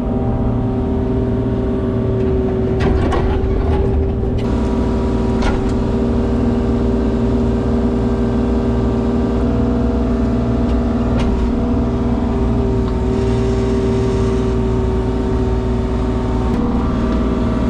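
An engine running steadily at an unchanging speed, with a few faint knocks over it.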